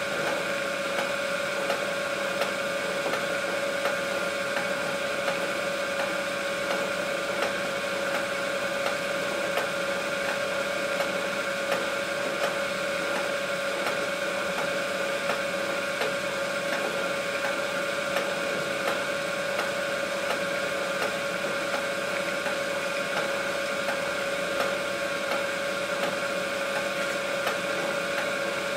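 A small machine running steadily: a constant whirr with a held hum and faint, rapid ticking throughout.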